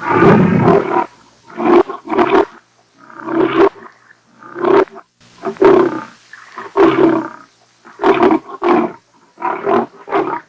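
Lion roaring: one long full roar at the start, then a run of shorter grunting calls, mostly in pairs, about one pair a second.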